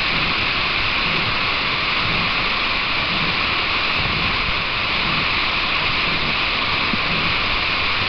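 Steady rush of falling water, an even hiss that holds at one level without change.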